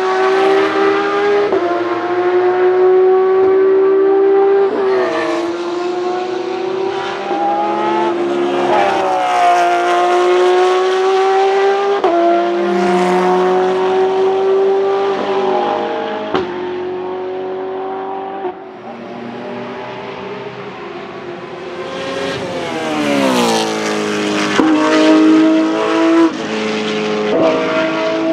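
GT3-class race car engines at full throttle, rising in pitch through the gears with a quick upshift every two to four seconds. About two-thirds of the way through, the engine note drops sharply on braking and downshifting, then climbs again.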